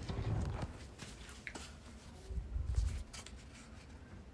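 Faint handling noises at a kitchen oven: low bumps and a few light clicks and scrapes as a baking pan goes in and the oven door and rack are moved.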